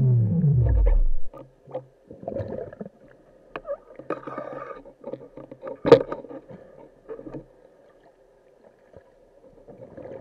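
A synthesized effect tone sweeps steeply down in pitch and dies out about a second in. Then comes muffled underwater sound picked up through a waterproof camera housing: a faint steady hum with scattered small clicks and knocks, and one sharp click near the middle.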